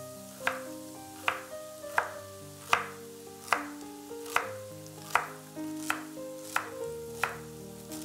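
Kitchen knife chopping through a bundle of celery sticks onto a bamboo cutting board: a crisp cut and knock on the board about every three-quarters of a second, some ten chops in a row.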